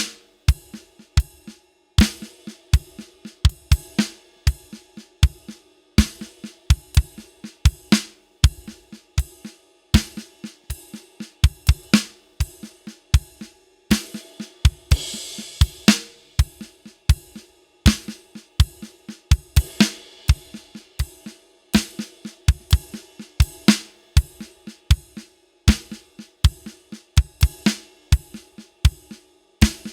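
Drum kit playing a steady 4/4 groove built on groups of three: ride cymbal strokes doubled by the kick drum, quiet snare ghost notes between them, and snare backbeats on beats 2 and 4. A longer cymbal wash rings out about halfway through.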